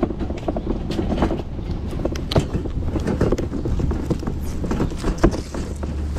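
Box truck driving, its engine a steady low drone under a constant clatter of rattles and knocks from the truck body.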